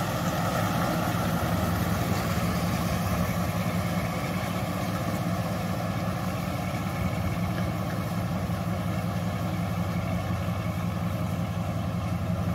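Diesel engine of a loaded Mitsubishi Fuso intercooler truck running steadily as the truck pulls away, its sound easing off a little as it moves off.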